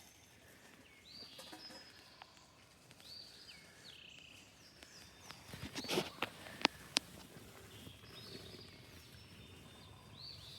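A songbird repeating a short high phrase, a slurred note that drops to a lower one, about every two seconds. A few sharp taps or clicks come about six to seven seconds in.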